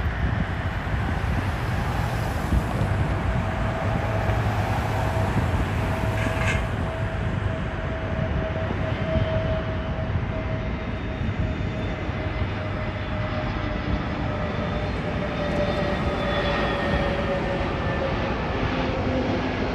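Airbus A320-family jet airliner on final approach, its engines giving a steady rumble with a held whine that slowly falls in pitch as the aircraft nears.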